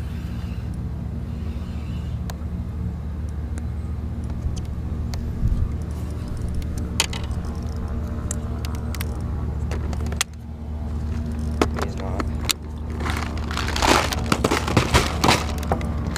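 A motor hums steadily and low, dipping briefly about ten seconds in. Near the end comes a flurry of sharp clicks and rattles.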